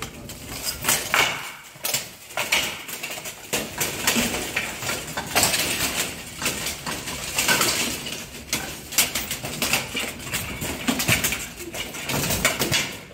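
Steel plate armour clanking and clattering in a dense run of metal knocks and clashes as two armoured fighters spar, close in and grapple to the ground.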